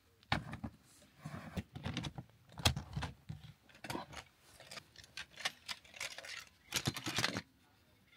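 Irregular clicks and knocks of a plastic storage crate being handled and its lid opened, with small handling rattles as a camping lantern is lifted out; a denser run of knocks about seven seconds in.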